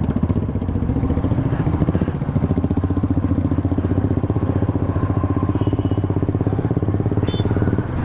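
Royal Enfield motorcycle engine idling with a steady, rapid, even thumping pulse.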